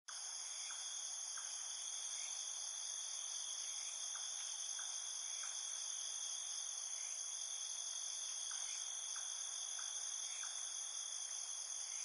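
Steady, high-pitched chorus of insects such as crickets, several continuous shrill bands at different pitches, with faint short chirps repeating about once a second beneath them.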